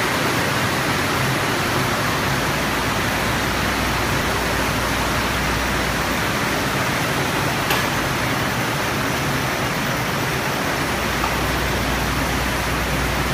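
Double-head paper rope machine running: a steady, even noise with a low hum underneath, and a single click about eight seconds in.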